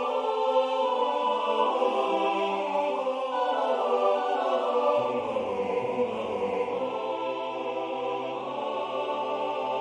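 Unaccompanied choral music in five parts, voices holding chords and moving in short running lines. The lowest voice is silent for the first half and comes in about halfway through.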